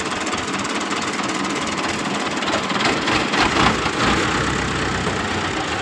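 Farm tractor engine running steadily under load as it pulls a tine cultivator through tilled soil.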